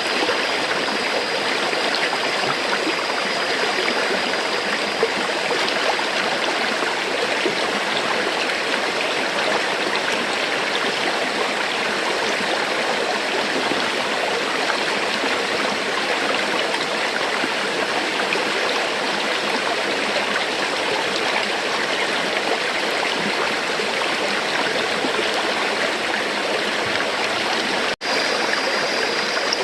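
River water flowing, a steady, even rush with no pauses except for a momentary dropout near the end.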